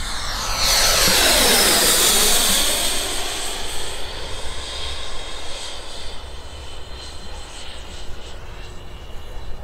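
Electric ducted fan of a Sebart mini Avanti S RC jet (90 mm WeMoTec Midi Evo fan, HET 700-75 motor on 12S) whining during a low fly-past. It swells to its loudest about a second in and drops in pitch as the jet passes, then carries on as a fainter, steady high whine as the jet climbs away.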